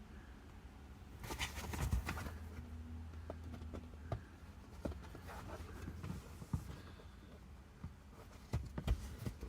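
Hands working at a car seat back: a burst of rustling about a second in, then a few light knocks and plastic clicks, over a steady low hum.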